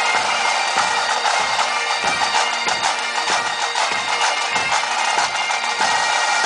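Massed Highland bagpipes and military drums playing together: the pipes sound over their steady drone, with an even beat of bass and snare drums at about two to three strokes a second.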